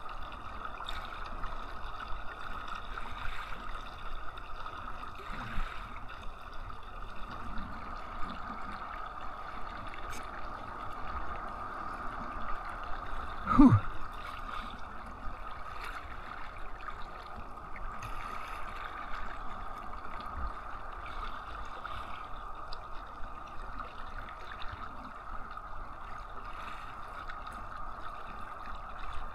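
Water gurgling and sloshing around a kayak on the move, as a steady hiss. About halfway through there is one brief louder sound that sweeps down in pitch.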